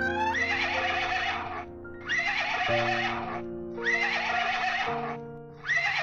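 Horse whinnying four times, each call rising at the start and lasting about a second and a half, over background music.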